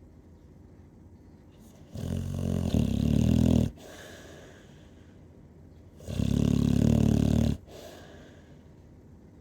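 Heavy snoring: two loud, buzzing snores about four seconds apart, each lasting about a second and a half and followed by a softer breath out.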